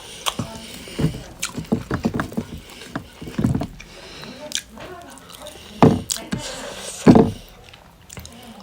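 Eating sounds close to the microphone: chewing and wet mouth clicks and smacks, with a few short louder bursts of sound about three and a half, six and seven seconds in.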